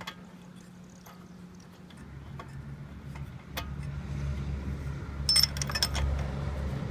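A few sharp metallic clinks of a spark plug wrench as the cleaned spark plug is put back into the lawnmower engine, over a low steady engine drone that swells in from about two seconds in.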